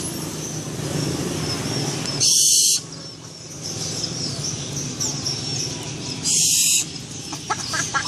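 Young barn owl, still partly downy, giving harsh hissing screeches about half a second long, once about two seconds in and again about six seconds in.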